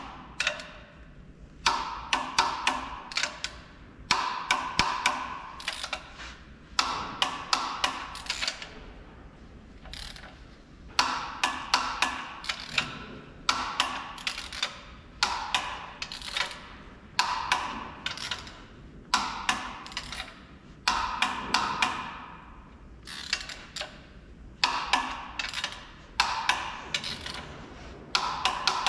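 Ratchet head of a torque wrench clicking in runs of rapid clicks, a new run about every two seconds, as it is swung back and forth to tighten the main bearing cap bolts of a Volvo D13 truck engine block to the first 150 N·m stage.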